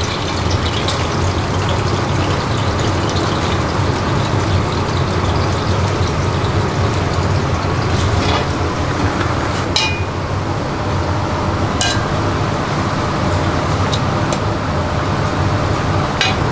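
Sliced onions sizzling in oil in a large steel wok over a gas burner, a steady dense hiss over a low kitchen hum, with a few sharp metal clinks.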